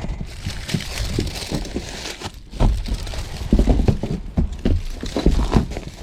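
Irregular thumps and knocks of a person climbing and shifting on ribbed sheet-metal roofing, with a low rumble of wind on the microphone.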